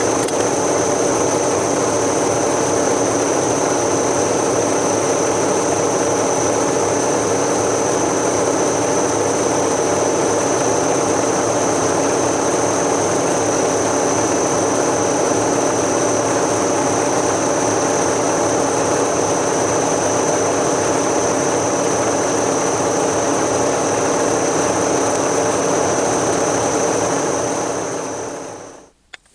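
Workshop machine tool running steadily with a constant high whine over a dense mechanical rumble. It winds down and stops near the end.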